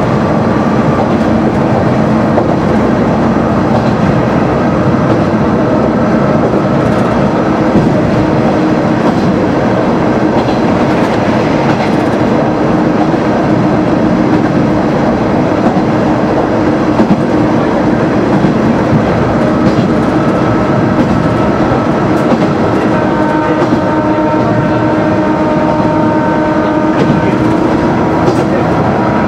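Kanto Railway KiHa 350 diesel railcar under way, heard from inside its cab: a steady running noise of the diesel engine and the wheels clicking over the rails. From about two-thirds of the way through, a steady whining tone with several pitches stacked together joins in.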